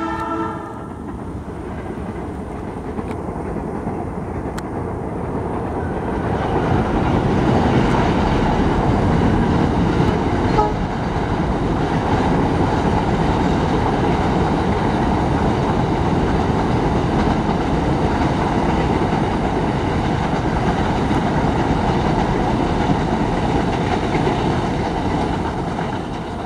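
Passenger train crossing a river bridge: a steady rumble of wheels and coaches on the bridge that swells about six seconds in, holds, and fades near the end. The tail of a horn blast dies away in the first half-second.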